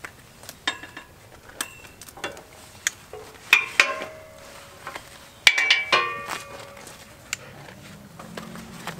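Irregular metal clinks and taps as hydraulic hoses, steel fittings and a hand tool are handled against a steel grapple frame, a few of the clinks ringing briefly; they come thickest about three and a half and five and a half seconds in.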